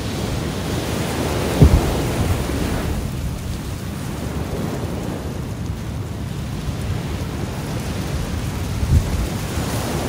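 Ocean waves washing against the shore with wind, picked up by a phone's microphone; the sound swells for a couple of seconds near the start and eases off. Two brief low thumps come about two seconds in and again near the end.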